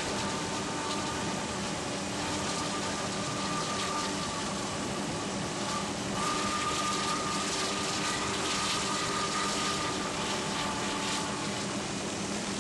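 Steady drone of an aircraft engine, with a high whine on top that drops out briefly a few times.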